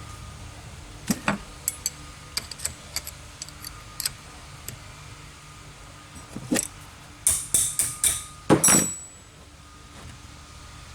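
Metal parts and hand tools clinking and tapping while a part is refitted to a fuel injection pump: scattered light taps, then a quick run of loud, ringing metallic clinks about seven to nine seconds in.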